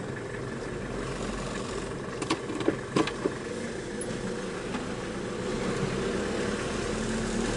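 Car engine running steadily at low speed, with a few short sharp knocks or clicks about two to three seconds in.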